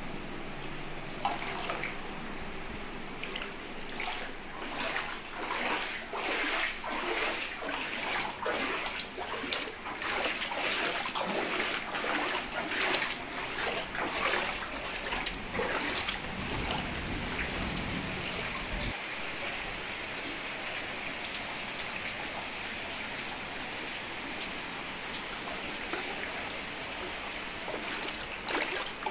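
Floodwater splashing and running: irregular splashes through the first half, then a steady rush of water.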